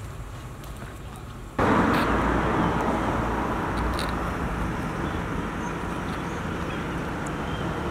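Road traffic noise at the roadside: a loud, even rush with low rumble that starts abruptly about a second and a half in and slowly fades. Before it, faint outdoor quiet with a few light footsteps.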